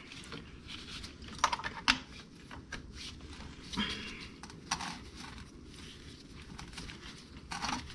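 Ratchet and socket on a long extension working a starter mounting bolt: irregular metallic clicks and clinks, a few with a brief ring, as the tool is fitted and turned.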